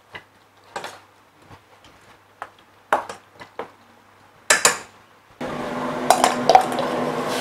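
Raw chicken pieces being mixed by hand in a stainless steel bowl, with scattered light clinks against the metal and a louder clatter about four and a half seconds in. About five seconds in, the steady loud rush of a commercial wok range's gas burner starts suddenly, with a couple of ladle clinks over it.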